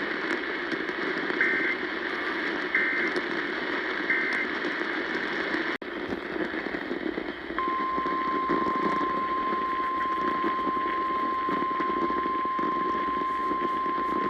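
NOAA Weather Radio receiver hissing with static: three short two-pitch SAME data bursts about a second and a half apart, the end-of-message code, then a brief dropout. About halfway through the steady 1050 Hz weather alert tone begins and holds, the alarm that comes before a new warning.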